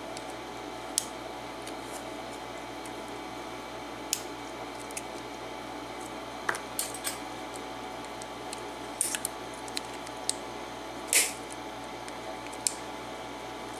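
Small metal clicks and scrapes of a Kwikset lock cylinder being handled while its retaining clip is worked off. About a dozen sharp clicks come at irregular intervals, with a longer scrape a little after 11 seconds in.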